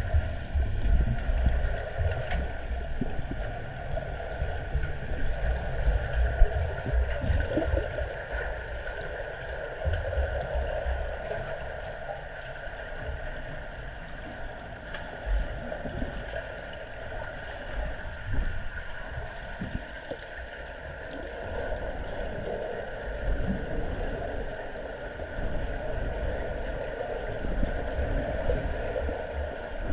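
Muffled underwater pool sound through a camera's housing: a steady rush of water with uneven low rumbling pulses, stronger near the start and again towards the end.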